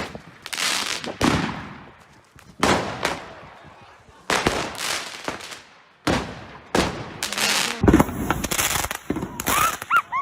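Fireworks going off: a string of sharp explosive bangs, each trailing away, some less than a second apart. The loudest bang comes about eight seconds in, followed by a dense run of rapid crackling.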